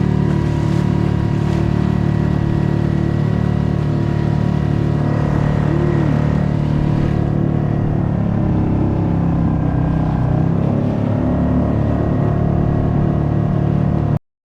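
Small boat outboard motor running steadily at cruising speed, its pitch shifting slightly about halfway through. The sound cuts off suddenly near the end.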